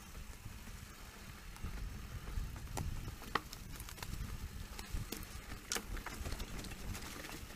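Specialized Turbo Levo electric mountain bike riding down a dirt singletrack: a low rumble of tyres on the trail, with scattered sharp clicks and knocks as the bike rattles over bumps.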